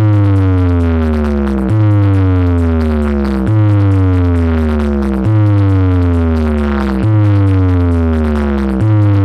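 Electronic bass test track played loud through a DJ sound system during a sound check: a deep sustained bass note with a falling synth tone, repeating about every second and three quarters.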